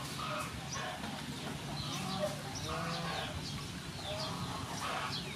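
Chickens clucking in short repeated calls, with small birds chirping high above them.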